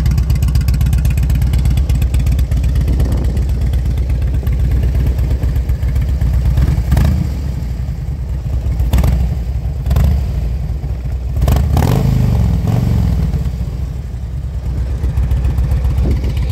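2007 Harley-Davidson Ultra Classic Electra Glide's air-cooled Twin Cam 96 V-twin idling with a steady loping beat through Vance & Hines Oval slip-on mufflers, with a few short throttle blips in the second half.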